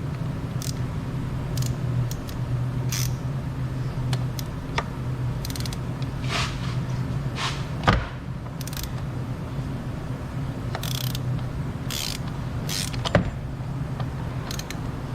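A 32 mm socket tool working on the oil filter housing cap of a 1.9 TDI diesel engine: scattered clicks and short scrapes, with two sharper knocks about eight and thirteen seconds in, over a steady low hum.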